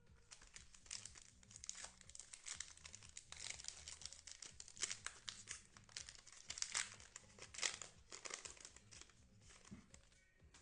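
Foil trading-card pack wrapper crinkling as it is torn open and handled, with irregular sharp crackles that come and go.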